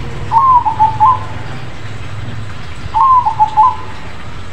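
Crossbred zebra dove (perkutut krosing) singing its cooing song twice, about three seconds apart. Each phrase is a quick run of several clear coos over a steady low background hum.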